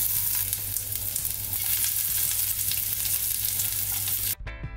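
Sliced ginger and garlic sizzling steadily as they drop into hot coconut oil in a frying pan. Near the end the sizzle cuts off suddenly and background music comes in.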